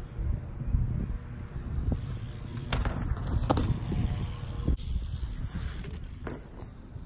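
A BMX bike rolling and knocking on concrete, with several sharp clatters, the loudest about three seconds in and another near the end, over a steady low rumble of wind on the microphone.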